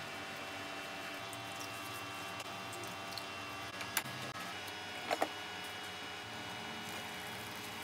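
Steady low hiss and hum of egg and vegetables cooking in a frying pan, with a sharp tap about four seconds in and a quick double clink about a second later.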